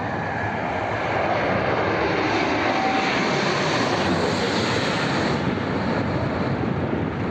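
Twin-engine jet airliner passing low overhead on landing approach: a steady engine rush that swells about a second in and eases after about five seconds.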